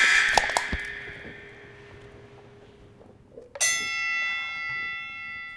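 Beer cans punctured and cracked open for shotgunning, with a loud fizzing hiss that fades away over about two seconds. About three and a half seconds in, a bell chime sound effect rings out and holds, marking the first drinker to finish.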